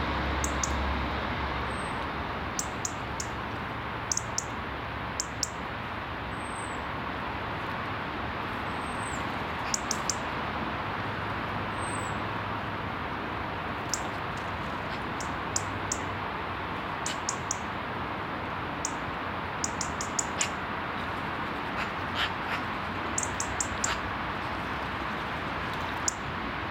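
Birds calling: short, very high clicks and calls in quick clusters of two to four, with a few brief chirps in between, over a steady background rush.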